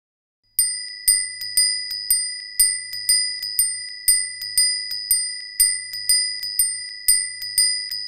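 A small high-pitched bell struck over and over in an even rhythm, about two loud strikes a second with a softer one between each, the ring holding one steady pitch. It starts about half a second in and is still ringing at the end.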